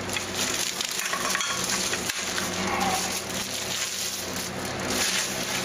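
Plastic wrapping crinkling and rustling as plastic-wrapped backdrop-stand crossbar poles are handled, over a steady low hum.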